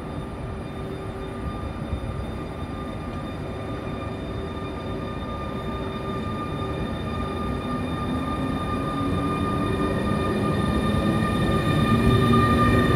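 Newag Griffin electric locomotive drawing slowly into the platform: a low rumble with steady electric whining tones from its traction equipment, growing louder as it comes alongside, with a low tone rising slightly in pitch in the second half.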